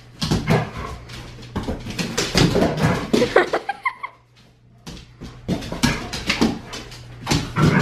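Two dogs scrambling after a laser dot on a vinyl kitchen floor: rapid clicking and scuffling of claws and paws, with a short whine about three and a half seconds in.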